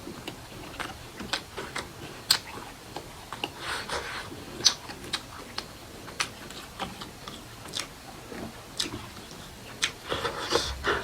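Close-miked eating sounds: wet mouth clicks and chewing, sharp irregular smacks a few times a second. A louder rushing noise about a second long comes near the end.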